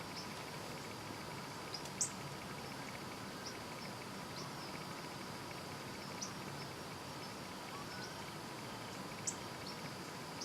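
Steady outdoor insect chorus of crickets trilling, with scattered short high chirps; the strongest chirps come about 2 seconds in and near the end.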